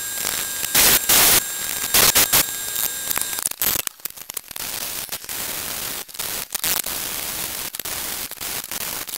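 Electric arc welding a stainless steel exhaust tip onto an exhaust pipe: a steady, rapid crackle of the arc that sets in a little under 4 seconds in. Before it come two short, loud bursts of noise.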